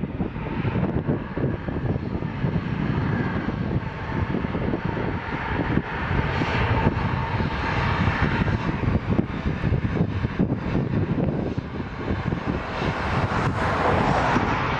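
Twin rear-mounted turbofan engines of a Bombardier CRJ regional jet at take-off power during its take-off roll, giving steady jet noise. The noise swells and brightens near the end as the jet draws closer.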